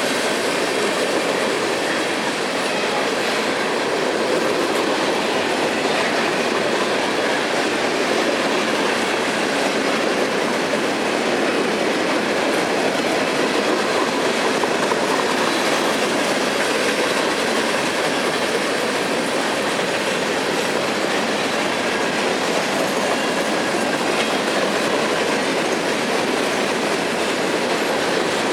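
Cars of a manifest freight train rolling steadily past: a constant, even noise of steel wheels on rail.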